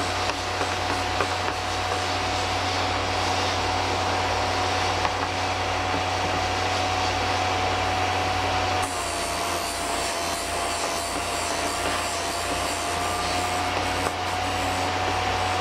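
A Vevor drill bit sharpener's motor runs with a steady whine while a drill bit is ground against its wheel, giving a rasping grind. The whine dips slightly about nine seconds in.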